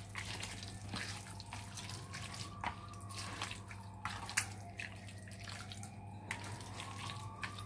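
Hands squeezing and mixing yogurt-marinated beef with fried onions in a bowl: faint wet squelches and many small clicks, over a steady low hum.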